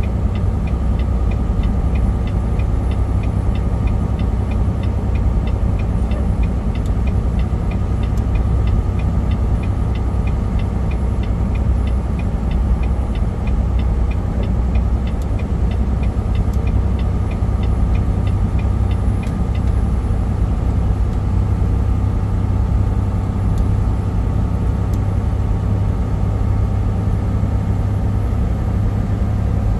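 Steady low drone of a truck's engine and road noise heard inside the cab while driving. A light ticking about twice a second runs along with it and stops about two-thirds of the way through.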